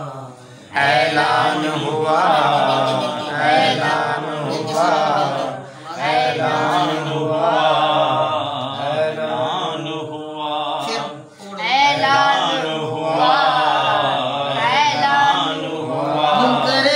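A man's solo voice chanting a devotional Urdu poem (manqabat) in long, drawn-out melodic phrases with ornamented runs. It comes in just under a second in and breaks briefly for breath twice.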